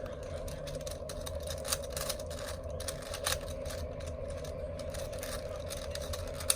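Scattered plastic clicks and rattles of a 4x4 Rubik's cube's layers being turned by hand, over a steady background hum.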